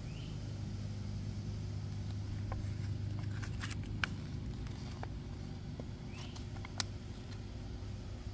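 A steady low mechanical hum, with a few faint clicks and paper rustles as a printed paper checklist is handled.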